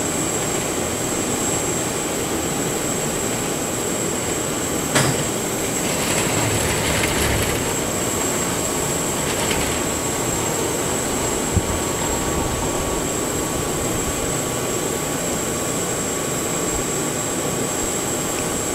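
Steady whine and rush of a parked Boeing 737's auxiliary power unit running, with a thin high whine held throughout. Two brief knocks, about five and eleven and a half seconds in.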